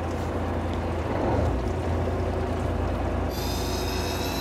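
Fishing boat's engine running steadily as a low hum under water and wind noise; near the end a thin, high steady whine comes in.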